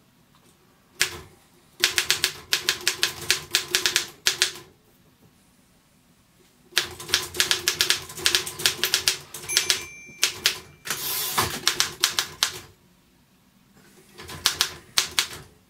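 Royal KMM manual typewriter being typed on: runs of rapid key strikes in four spells with short pauses between them. Near the middle a brief bell ring is followed by a longer scraping sweep, typical of the margin bell and a carriage return.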